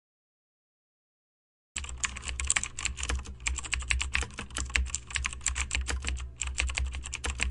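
Rapid, irregular clicking over a low steady hum, starting about two seconds in after a stretch of dead silence.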